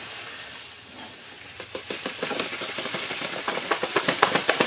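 Granulated sugar pouring from a paper bag into a plastic measuring cup: a hiss of running grains with quick crackling that gets busier from about halfway.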